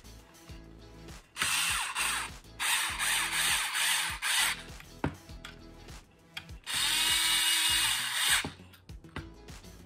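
Cordless electric screwdriver running in three spells, tightening the servo mounting screws into a plastic RC car chassis: a short run about a second and a half in, a longer stop-start run after it, and a steady run of about a second and a half near the end.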